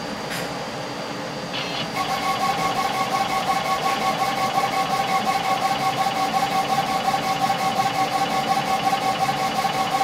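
Epilog Fusion 60-watt CO2 laser engraver starts raster engraving about two seconds in. Its carriage motors whine and pulse about five times a second as the laser head sweeps back and forth, over a steady hum.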